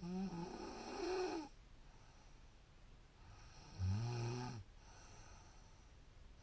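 A woman snoring in her sleep: two long snores, each lasting over a second, the second beginning about three seconds after the first ends.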